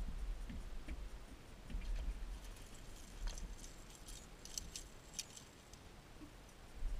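Scattered light clicks and rattles, densest near the middle, from a landing net and fishing tackle being handled in an aluminium boat while a fish is netted, over a low rumble.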